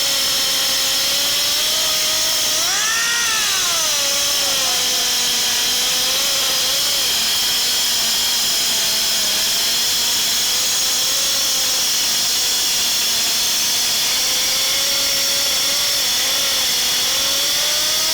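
Pneumatic 7-inch grinder running under air: a steady loud hiss with a whine whose pitch wavers, rising and falling once about three seconds in.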